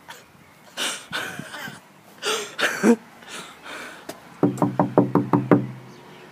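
Rapid knocking on a front door: about eight quick knocks in just over a second, starting about four and a half seconds in.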